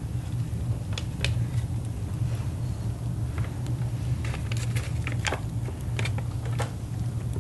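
A taco seasoning packet rustling and clicking faintly as it is shaken and tapped to sprinkle seasoning, over a steady low hum.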